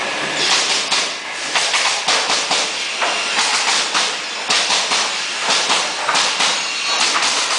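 Pneumatic pallet-assembly table and its compressed-air equipment: repeated short bursts of air hiss coming irregularly over a steady noise, with a few sharp knocks.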